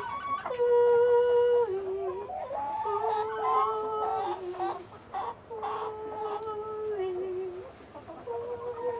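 A woman humming a repeated two-note call, a long held note stepping down to a lower one, again and again, while hens cluck around her. It is the song the hens are trained to go into the coop to.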